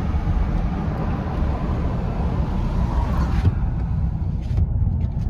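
Steady low rumble of a car driving, road and engine noise, with a higher hiss that drops away about three and a half seconds in.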